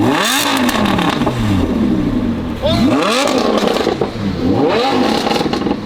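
A sports car engine revved hard three times through a loud exhaust, each rev rising quickly and then falling slowly back. Its exhaust valve is open.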